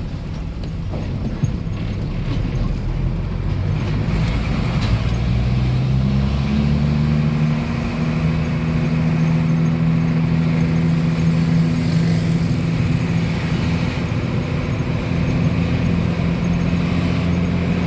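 Motor vehicle engine running while driving, with road noise. The engine note rises about five seconds in as the vehicle speeds up, then holds steady.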